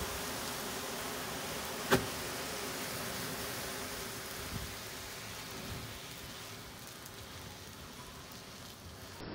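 Hundreds of matchstick heads burning together in one large flame: a steady rushing hiss of fire with a sharp crack about two seconds in and a smaller pop later, fading as the flames die down.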